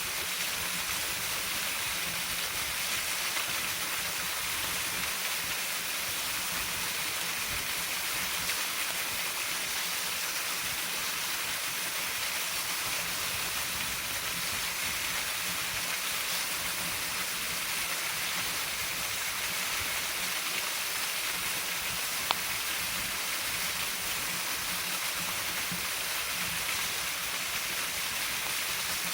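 Waterfall rushing: a steady, even roar of falling water. A single sharp click sounds about 22 seconds in.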